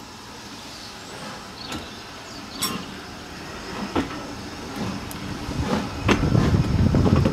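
A steam-hauled passenger train starting to pull away from a station, heard from a carriage window. A string of sharp bursts comes closer together as the train gathers speed, and the rumble of the carriage wheels builds loudly near the end.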